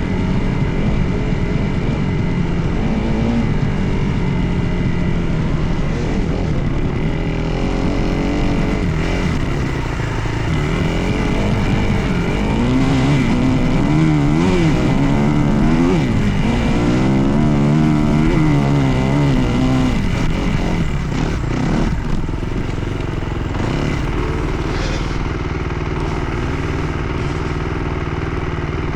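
Dirt bike engine running under riding, its pitch rising and falling repeatedly as the throttle is worked, then settling to a steadier, slightly lower and quieter note for the last several seconds.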